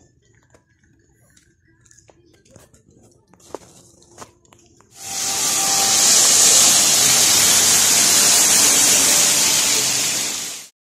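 Fountain jets spraying and splashing into a basin: a loud, steady rush of water that starts suddenly about five seconds in and cuts off near the end. Before it there are only faint scattered clicks.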